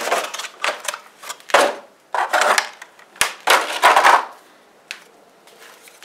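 Clear plastic blister packaging being handled and crinkled in a run of short rustling, scraping bursts, with a sharp click about three seconds in and another near five seconds.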